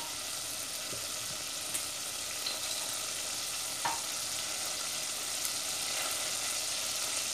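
Margarine melting and foaming in hot olive and sunflower oil in a stainless steel pot, sizzling with a steady hiss and a few faint ticks.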